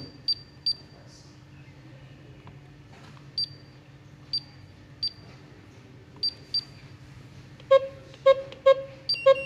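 Key-press beeps from an alarm system's keypads: short high beeps from a white wireless touch keypad, one per key, in small groups with pauses. About eight seconds in, louder and lower beeps start, one per key, as keys on the Wolf-Guard alarm control panel are pressed.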